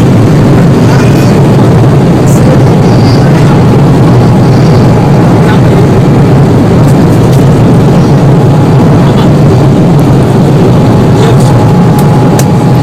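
Airliner cabin noise during departure: the engines and rushing air make a loud, steady rumble, heard from inside the cabin.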